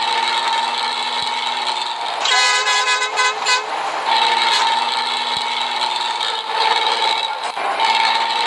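Hino AK8 front-engined diesel bus engine running with a steady drone, the "ngorok" (snoring) sound. About two seconds in, a horn sounds in a few short blasts lasting about a second and a half.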